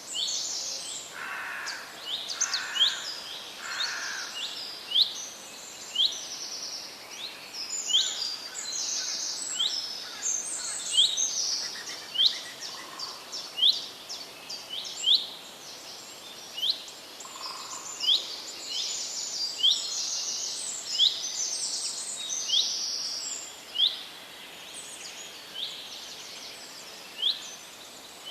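Several wild birds singing and chirping at once: a dense run of quick, high, sweeping notes repeated again and again, with a few lower calls in the first few seconds.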